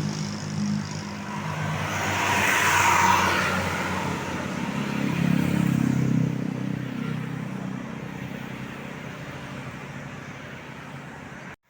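Large tour bus driving past, its engine running, with a rush of tyre and air noise about two to three seconds in, then the engine sound slowly fades.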